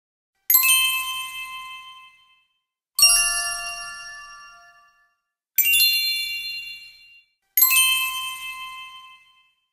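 Bell-like chime struck four times, each strike ringing with several high tones and fading away over about two seconds before the next.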